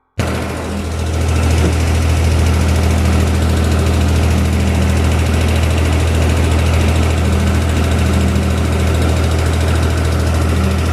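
A heavy machine's engine running steadily at a constant speed, with a deep even hum and no revving.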